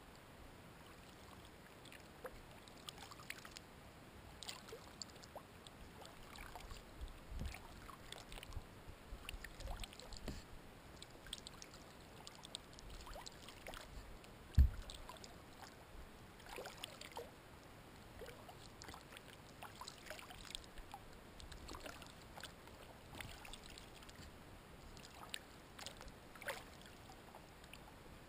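Kayak paddling on calm water: the paddle blades dip and drip, making soft, irregular splashes and trickles every second or so. A single sharp low thump comes about halfway through.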